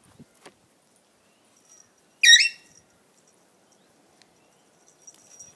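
Toy poodle giving a single short, high-pitched yelp about two seconds in, amid faint shuffling of dogs on dirt.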